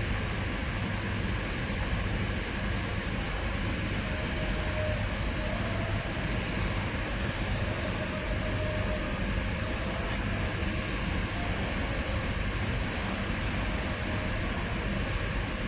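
Electric motor of a CNC machine, its stator freshly rewound, running steadily on test with an even hum and hiss.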